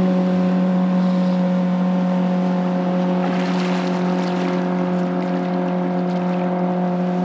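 Boat motor running at a steady speed: one constant droning hum that does not change pitch, over a rushing hiss.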